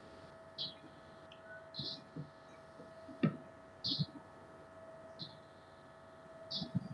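Faint, broken speech over a steady electrical hum, with a single sharp click about three seconds in.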